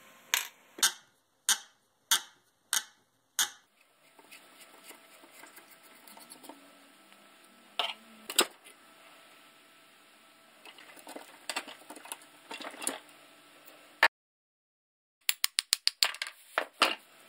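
Hammer strikes on steel as the nails and screws in an old axe's handle wedge are driven out: six sharp blows about half a second apart, then scattered metal clicks and scrapes. Near the end comes a quick run of about eight hammer blows on the axe head, knocking out the remains of the old handle.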